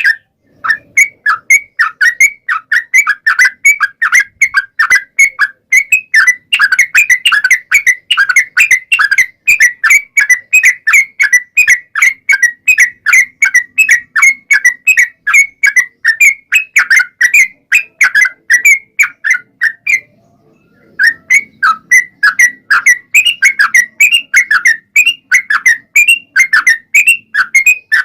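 Yellow-vented bulbul (trucukan) singing a long rapid string of short, bright chattering notes, about three to four a second. It breaks off for about a second past the two-thirds mark, then carries on.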